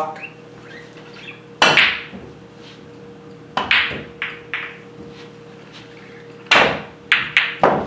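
Pool balls clacking: a cue strikes the cue ball and the balls knock together, a sharp click about two seconds in, a few more around four seconds, and a quick run of clacks near the end.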